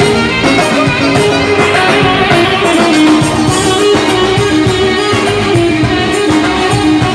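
Loud live band music for dancing: a stepping lead melody over a steady beat.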